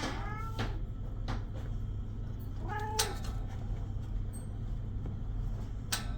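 Kitten meowing: the falling tail of a meow at the start, then one short meow about three seconds in. A few light clicks or knocks are heard over a steady low hum.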